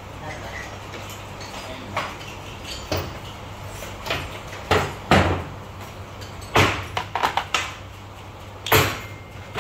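Hand tools and parts of a Hinota CG 435 brush-cutter engine clanking and knocking as the engine is taken apart on a workbench. The knocks come irregularly, with a quick run of knocks about seven seconds in and a loud knock near the end.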